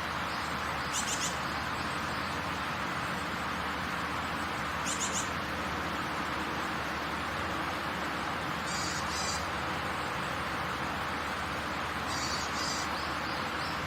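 Heavy rain falling, a steady even hiss. Short high chirps break through it about every four seconds.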